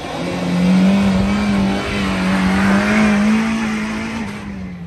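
Suzuki SJ-410 engine running hard under load as the wheels churn through a dirt rut. The engine note climbs slowly, then eases off near the end as the vehicle passes close by.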